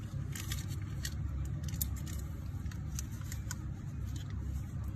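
Steady low rumble of background traffic, with a few faint, light ticks scattered through it from metal lighters being handled.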